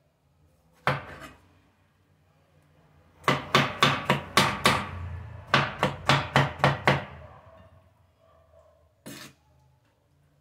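Large kitchen knife chopping roasted tomatoes on a wooden chopping board: a single chop, then two quick runs of about six chops each at about four a second, and one more chop near the end.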